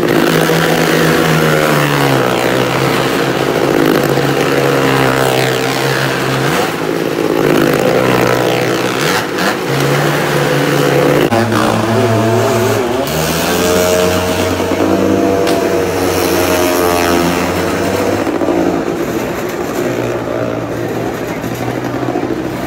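Motorcycle engines running hard around the wooden wall of a Well of Death drum: a loud, steady engine drone whose pitch rises and falls again and again as the riders circle. It eases off a little near the end.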